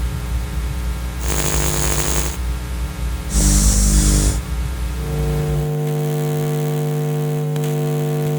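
Designed electrical buzz and hum tones: a low rumbling hum broken by two short bursts of static hiss, about a second and three and a half seconds in, then a steady pitched electrical hum with overtones from about five seconds in.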